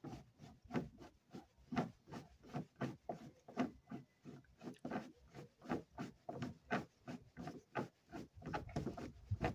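Hand rivet tool squeezed over and over to set a rivet in a car's sheet-metal body, giving short regular clicks about three times a second.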